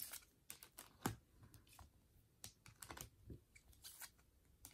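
Pokémon trading cards being handled and laid down on a table: a string of faint, irregular light clicks and taps.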